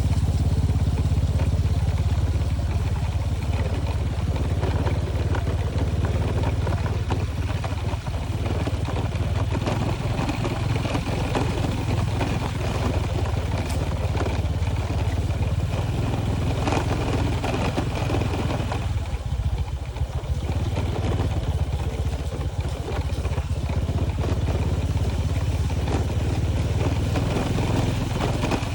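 A vehicle's engine running steadily while travelling along a road, a constant low rumble with road noise over it that eases briefly about twenty seconds in.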